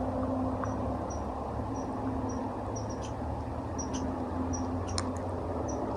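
Bulldozer engine running steadily, with short high chirps repeating about twice a second and a few sharp ticks over it.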